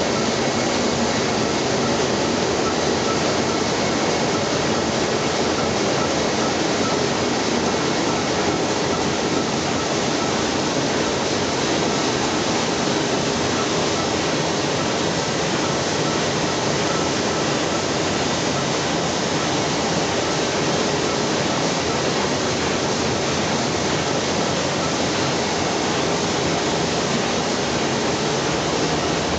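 Sheet-fed offset printing press running: a loud, even mechanical din with a few faint steady tones in it.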